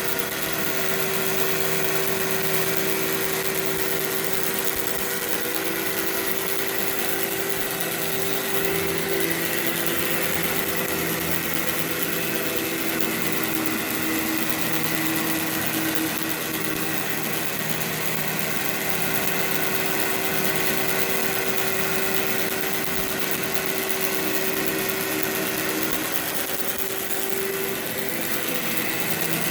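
Workhorse vacuum cleaner running steadily on carpet: a constant motor hum with a rush of air.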